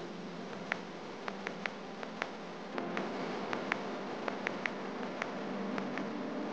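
Street noise beside wet, muddy traffic: a steady hiss that grows a little louder about three seconds in, scattered with irregular sharp clicks.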